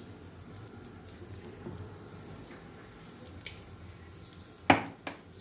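A metal spoon working in a steel kadhai, quiet soft scraping with a few light ticks, then a sharp clink against the pan near the end and a lighter one just after.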